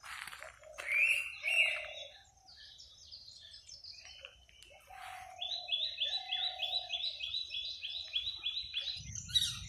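Several wild birds calling in woodland: drawn-out low whistled notes, a few higher chirps, then from about five seconds in a rapid run of short repeated notes, about four a second, lasting some three and a half seconds. A low rumble comes in near the end.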